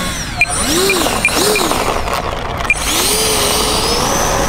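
Electric ducted fan of an FMS F-35 Lightning II 64mm EDF jet, with its brushless motor, blipped twice, each rise and fall in pitch short. About three seconds in, it spools up to a steady high whine at full throttle for a takeoff roll.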